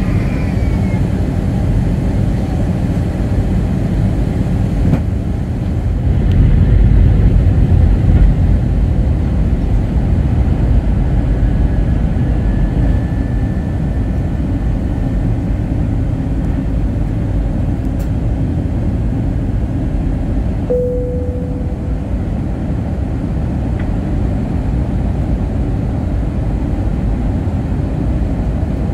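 Steady airliner cabin noise on descent: a low rumble of engines and rushing air that swells for about two seconds some six seconds in. A short single tone sounds about three-quarters of the way through.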